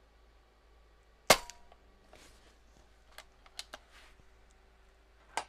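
A single shot from a .22 Air Venturi Avenger bullpup PCP air rifle, one sharp crack about a second in. A few quiet clicks and one sharper clack near the end follow as the rear side lever is worked to load the next pellet.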